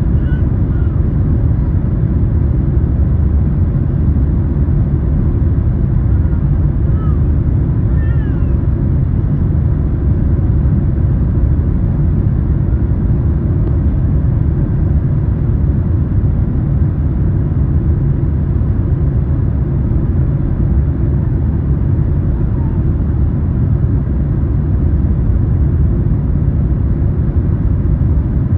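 Airliner cabin noise during the landing: a loud, steady low rumble of engines and rushing air, with a few faint short high squeaks near the start and again about seven seconds in.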